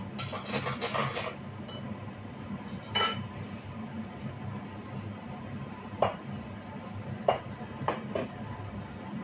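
Kitchen dishes and utensils clinking and knocking on a counter: a quick run of small knocks at the start, one ringing clink about three seconds in, then a few single knocks near the end, over a steady low hum.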